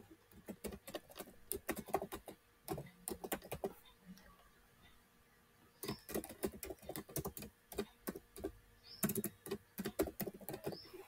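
Typing on a computer keyboard: quick runs of key clicks, pausing for a couple of seconds about halfway through before another run of typing.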